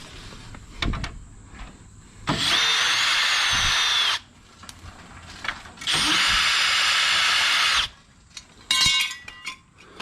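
Cordless power drill running a socket to undo the bolts on a bumper subframe bracket, in two steady runs of about two seconds each with a whining motor tone. A short metallic rattle comes near the end.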